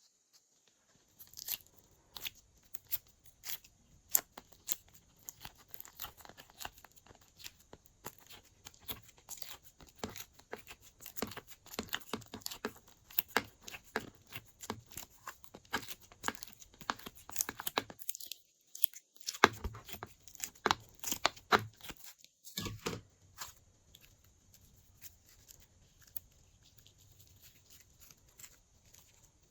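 Glossy slime being squished and mixed by hand, giving a dense run of sticky clicks and pops that thins out to faint ones for the last few seconds.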